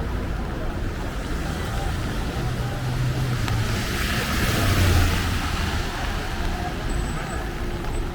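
A vehicle passing on a wet street, its tyre hiss and engine swelling to a peak about halfway through and then fading, over steady city background noise.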